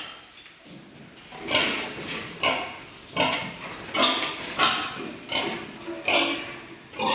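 A pig calling in a series of short grunts and squeals, roughly one a second.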